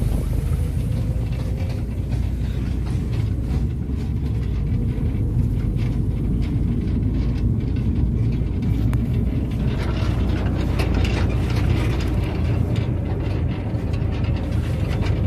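Farm machinery engine running steadily under load while silage is being made, with more rattling and clatter from about ten seconds in.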